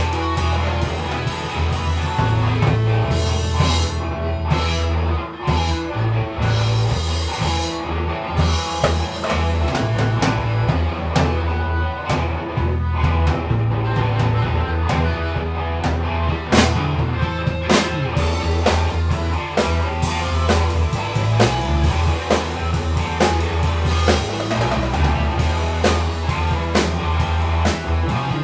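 Live improvised rock jam: a drum kit with cymbal crashes and electric guitars playing together through amplifiers over a steady beat.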